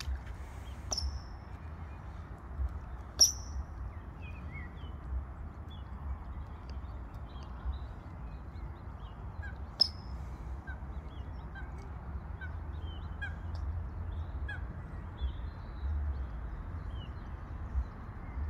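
Birds calling: many short, high chirps all through, with a few sharper, louder calls, over a steady low rumble.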